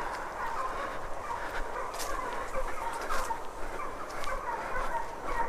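Pack of deer hounds baying in chorus, many overlapping calls while running a deer on a hot trail.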